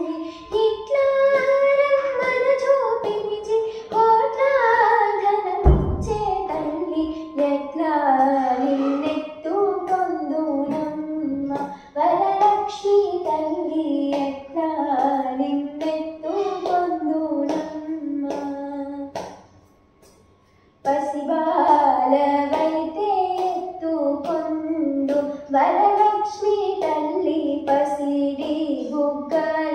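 A girl singing a Telugu devotional song to the goddess Varalakshmi, unaccompanied, with a short breath break about two-thirds of the way through. A single low thump about six seconds in.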